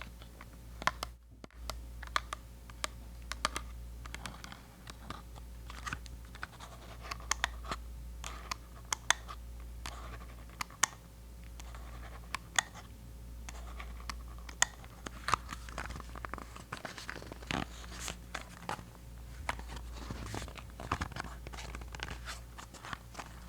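Fingernails scratching and tapping on an unopened mini Colgate Sensitive toothpaste, a dense run of small crisp clicks and scratchy crinkles at a close-up ASMR level.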